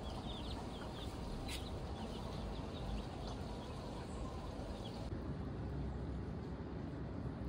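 Domestic chicks peeping: short high cheeps scattered through roughly the first four and a half seconds, then they stop. A low, steady background rumble runs underneath.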